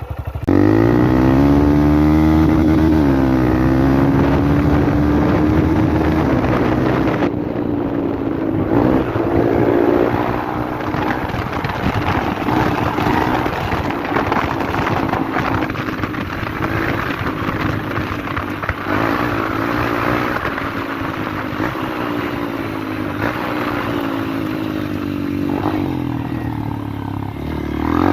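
Honda Bros 160 motorcycle's single-cylinder engine running with a rumbling exhaust. The revs climb sharply in the first second, dip briefly, then hold fairly steady with small rises and falls, and climb again near the end.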